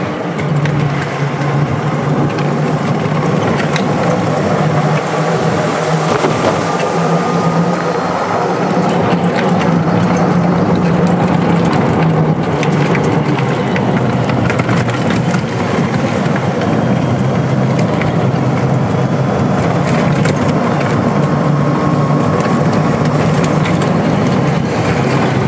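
Club Car Precedent electric golf cart driving along a paved street: a steady drone from its drive motor and tyres, with rattles and clicks from the cart's body and wind on the microphone.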